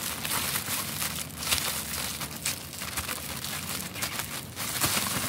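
Thin clear plastic bag crinkling in quick, irregular rustles as its neck is twisted and tied shut.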